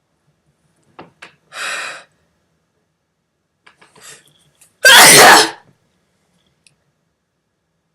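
A woman's drawn-in, voiced "ah" breath as a sneeze builds, then about three seconds later one loud, explosive sneeze. Her nose is tickled by an irritant, an allergy sneeze.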